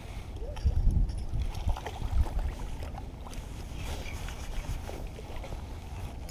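Wind buffeting the microphone as an uneven low rumble, with louder gusts about a second in and again around two seconds in.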